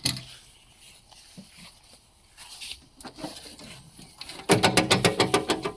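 Faint handling noises, then, a little over four seconds in, a loud, quick ratchet-like run of mechanical clicks.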